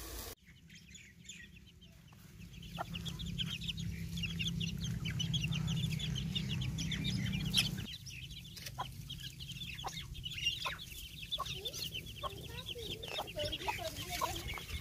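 A flock of village chickens foraging: chicks peep rapidly and constantly, and hens cluck in short low calls that stand out more after about eight seconds. A low steady hum underneath stops suddenly about eight seconds in.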